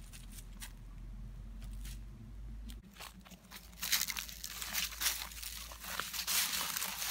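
Footsteps crunching through dry fallen leaves and brush. They start about four seconds in as a quick, irregular run of crackling crunches, after a quiet start.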